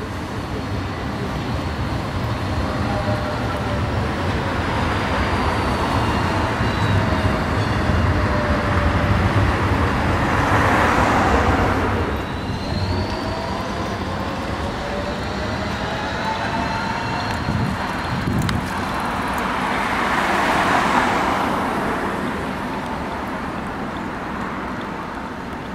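City street traffic: a steady rumble of road vehicles, with two louder pass-bys that swell and fade, one about ten seconds in and one about twenty seconds in. Faint whining tones slide down and then up in pitch.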